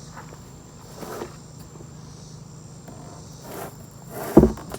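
Scuffing and shuffling as a heavy stone slab is carried, then one loud heavy thud about four seconds in as the slab is set down.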